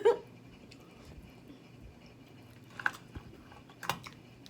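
Close-up eating sounds: quiet chewing with two short sharp clicks about three and four seconds in, over the faint steady noise of a room fan.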